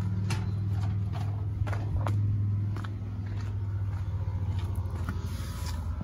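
Frigidaire 5000 BTU window air conditioner running on low with its compressor on: a steady low hum, with scattered light knocks and footsteps.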